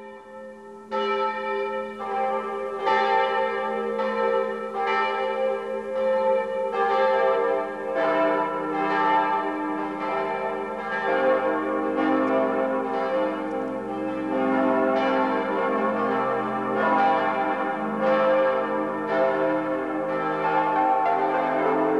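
Church bells ringing: several bells of different pitch struck one after another in quick succession, each ringing on so that their tones overlap.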